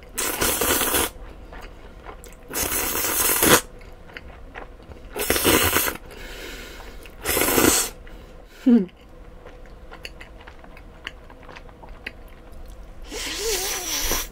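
Mouthfuls of sauce-coated cold noodles slurped in about five loud bursts, each about a second long, with quieter chewing between. A short falling vocal sound comes about nine seconds in.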